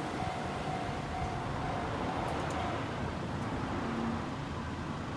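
Level-crossing electronic warning bell ringing at about two strokes a second, then stopping about three seconds in, once the train has cleared, over steady road traffic noise.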